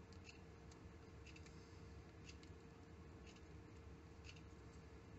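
Near silence: faint room tone with a steady low hum and faint ticks at an even pace of about one a second, plus a few small extra clicks from handling the thread spool and bobbin.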